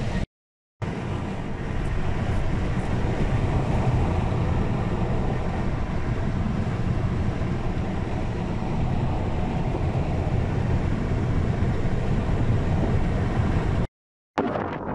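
Steady low rumbling noise with no clear rhythm or tone, cut by two brief dropouts to silence, one about half a second in and one near the end.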